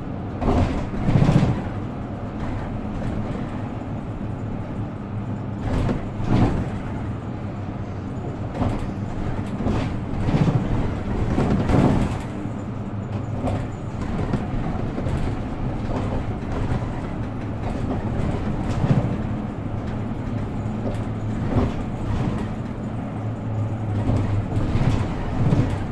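Inside a Mercedes-Benz Citaro K C2 city bus under way: a steady engine hum and road noise, with a few brief louder knocks from the body every few seconds.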